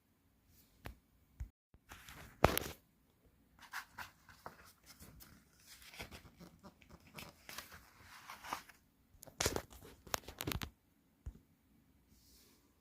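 Packaging being handled and torn: irregular rustling and tearing with scattered clicks and knocks, the sharpest crack about two and a half seconds in.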